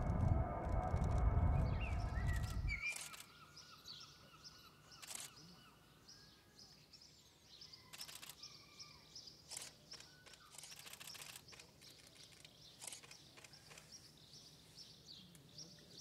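A loud low rumble with a steady droning hum that cuts off abruptly about three seconds in, followed by quiet open-air ambience with faint, scattered bird chirps and a few light clicks.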